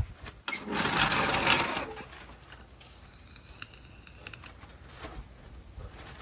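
A short burst of a small power tool running with a rapid rattle for about a second, about a second in, followed by light clinks and ticks of tools.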